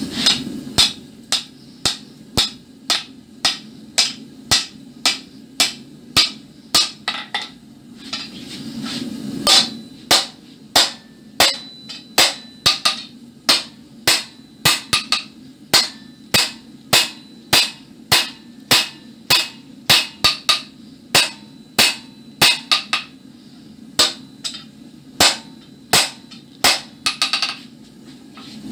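Hand hammer striking red-hot iron on a steel anvil, forging the split, forked end of a bar: a steady run of ringing blows about two a second, broken by two short pauses.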